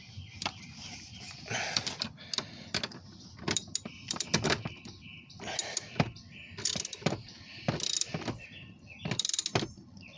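Socket ratchet clicking in irregular short runs while a 10 mm bolt is turned in, with scattered knocks and clinks of metal tools.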